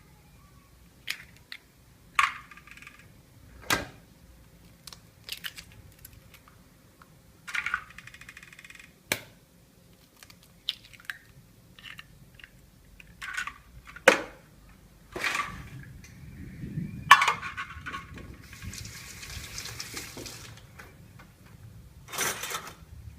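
Scattered knocks and clinks of kitchen utensils and dishes being handled during food preparation, with a brief hiss of noise a few seconds before the end.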